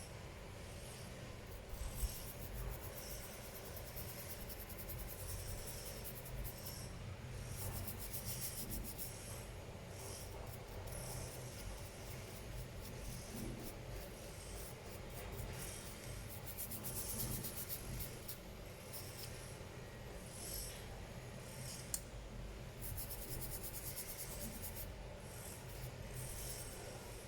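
Hands working on small laptop parts: intermittent scraping and rubbing in short spells of rapid fine scratches, with two sharp clicks, one about two seconds in and one late on.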